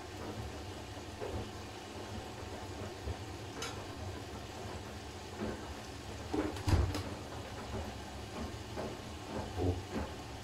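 Siemens iQ500 front-loading washing machine running a wash, its drum turning with a steady low hum and irregular soft knocks and swishes of laundry and water. The loudest is a short cluster of knocks about six and a half to seven seconds in.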